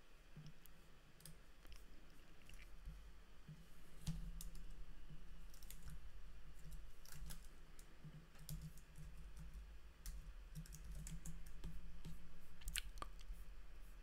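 Faint computer keyboard keystrokes and mouse clicks, scattered and irregular, over a low steady hum.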